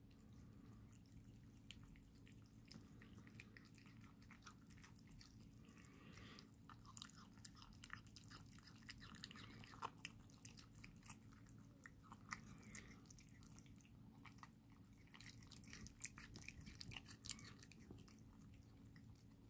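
Kittens chewing and licking raw liver, faint wet smacking and small clicks that come thickest in the middle and again near the end.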